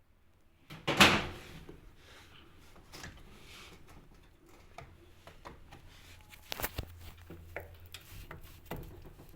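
Handling noises: a loud knock with a scrape about a second in, then scattered clicks, knocks and rubbing, over a low steady hum.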